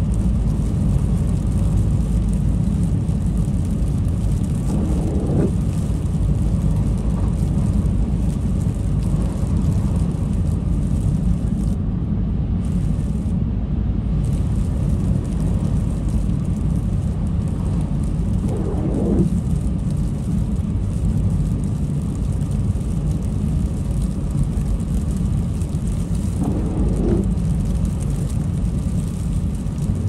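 Steady low road and engine rumble inside a car driving on a snowy, slushy road. A windshield wiper sweeps across the glass three times, about 5, 19 and 27 seconds in.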